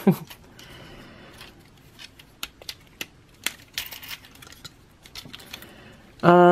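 Small plastic clicks, taps and scrapes of a Transformers figure's parts being folded, pegged and snapped into place by hand. A short falling vocal sound comes at the start, and a brief steady hum near the end.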